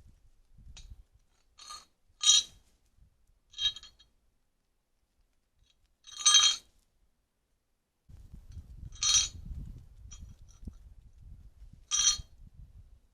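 Short, sharp ringing clinks, about half a dozen spaced irregularly a second or more apart, two of them much louder than the rest, with a low rumble of movement under the last few.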